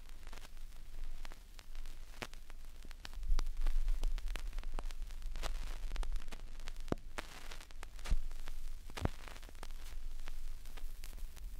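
Vinyl LP surface noise in the quiet groove between bands: scattered clicks and pops over a low hum and rumble, which swells about three seconds in.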